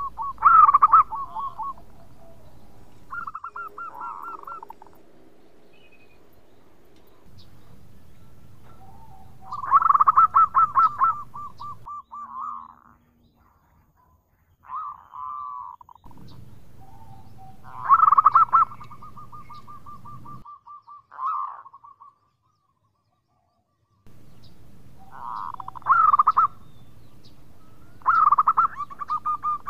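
Zebra dove (perkutut) cooing: a string of phrases a few seconds apart, each a loud opening coo that runs into a quick stuttering trill on much the same pitch.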